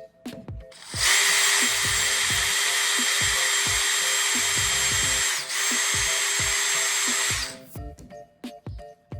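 Power drill with a thin 5/64-inch bit running steadily into a plastic toy, starting about a second in and stopping near the end, with a brief dip just past the middle. Background music with a steady beat plays throughout.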